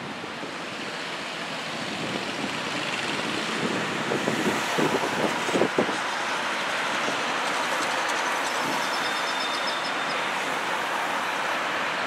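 Gusty wind buffeting the microphone over a steady rush of city traffic, with a few low thumps of wind in the middle.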